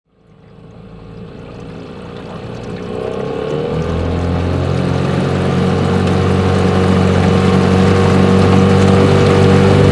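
Outboard motor on a small aluminium fishing boat, fading in from silence. It rises in pitch as it speeds up about three to four seconds in, then runs steadily under way.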